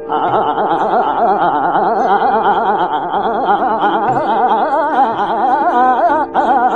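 Hindustani classical vocal in Raag Durga: a male singer running fast taans on open vowels, the pitch shaking up and down quickly in gamak, over a steady drone. There is a brief break about six seconds in.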